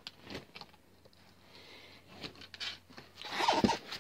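Hands working a cut rubber inner tube in among a bicycle wheel's spokes and tire: soft rubbing, scraping and light clicks, then a louder falling squeak near the end.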